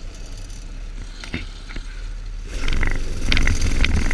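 Dirt bike engine running under way, getting louder about two-thirds of the way through, with a few sharp clacks and rattles.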